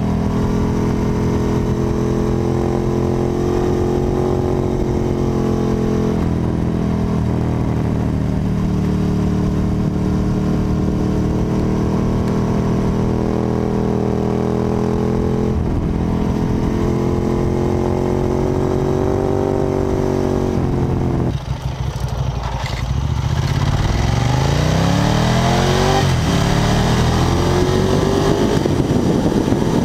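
Ducati 1098's L-twin engine running at a steady, slowly shifting pitch while the bike leans through corners. About 21 seconds in it drops off briefly, then the revs rise in long sweeps as the bike accelerates, with wind rush growing louder.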